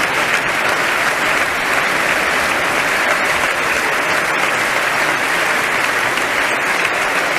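A large audience applauding steadily, a sustained ovation with no let-up.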